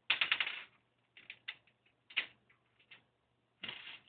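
Cockatiel's beak pecking at small backgammon pieces on a travel backgammon board, knocking them loose: a quick run of light clicks and rattles at the start, scattered single clicks, and another short cluster near the end.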